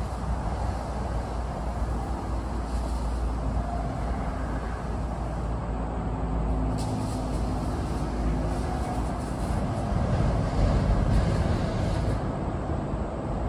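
Steady rumble of vehicles, with a low engine hum coming in about five seconds in and fading near the end.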